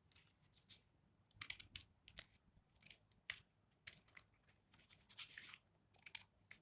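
Scissors snipping through tape-covered paper: a string of faint, short, irregular cuts.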